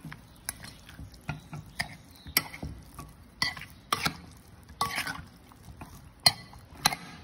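A spoon mixing seasoned raw chicken drumsticks in a glass bowl: irregular clinks and knocks of the spoon against the glass, and wet sounds of the meat being turned.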